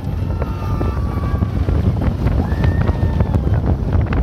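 Wind rushing over the microphone of a rider on a moving roller coaster, the Slinky Dog Dash Mack Rides coaster train, with a low running rumble underneath and a few faint thin high whines.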